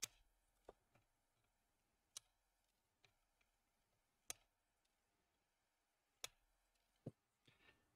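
Flush cutters snipping off the protruding legs of freshly soldered power transistors on a circuit board: sharp little clicks every second or so, about eight in all, some louder than others.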